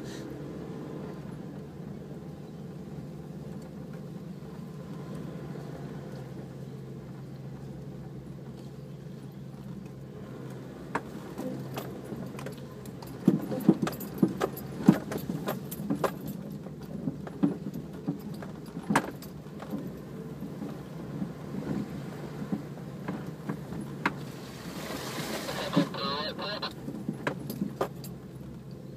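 Four-wheel-drive vehicle heard from inside the cabin, its engine running in a steady low drone. From about ten seconds in come many sharp rattles and knocks as it drives off-road over rough ground.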